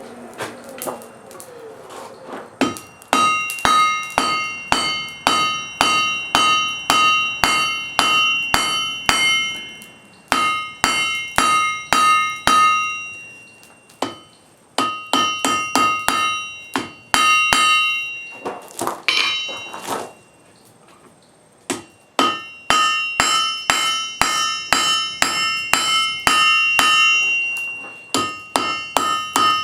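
Blacksmith's hammer striking hot wrought iron on an anvil, about three blows a second in runs broken by short pauses. Each blow leaves a clear metallic ring.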